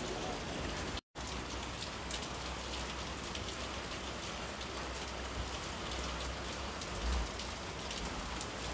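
Steady hiss of rain falling, broken by a brief dropout about a second in.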